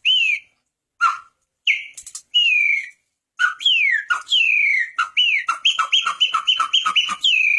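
A person whistling an imitation of the chico-preto's song. A few separate notes slide downward, then comes a quick run of short repeated notes, and a long held note near the end.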